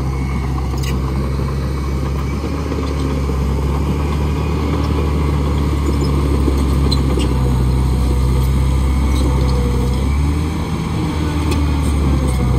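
Track loader's diesel engine running steadily, dipping briefly about ten seconds in and then picking back up.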